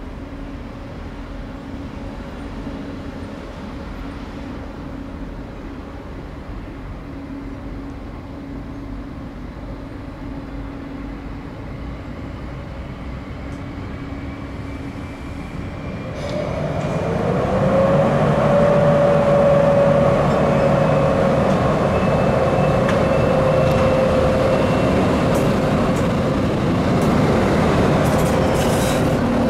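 A train runs at low speed with a steady low hum. About halfway through it grows louder as the train comes close, and a long wheel squeal starts, rising to a held tone.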